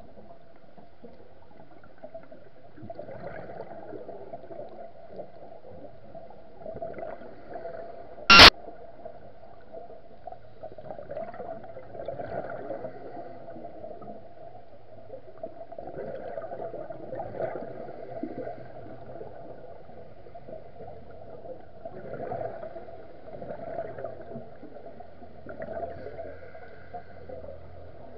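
Scuba diver's regulator breathing heard underwater: gurgling bursts of exhaled bubbles every four to five seconds over a steady murmur. One loud, sharp click about eight seconds in.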